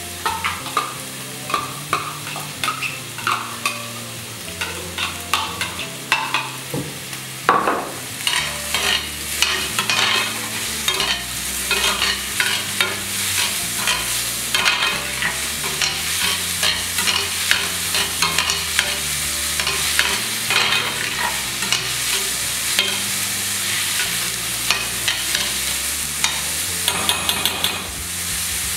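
Chopped onion frying in a thick layer of oil in a stainless steel pan, sizzling steadily while a metal utensil stirs it, clicking and scraping against the pan many times.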